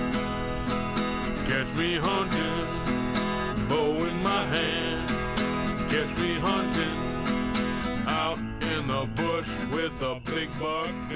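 Country-style song with strummed acoustic guitar and a steady beat, a voice singing over it.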